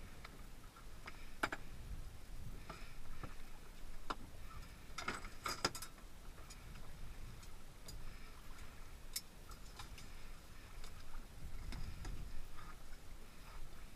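Scattered clicks, ticks and light knocks of spearfishing gear being handled on a boat deck, with a short cluster of clicks about five seconds in, over a low background rumble.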